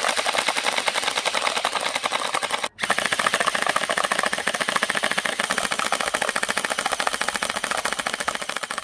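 Pair of battery-powered electric gel blasters firing fully automatic at once, a dense rapid rattle of shots. It breaks off for a split second about three seconds in, then carries on.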